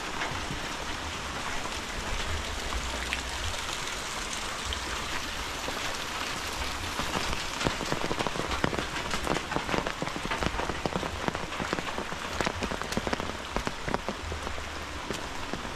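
Steady rain falling, a continuous hiss, with sharp taps of heavy drops striking close by that grow frequent about halfway through.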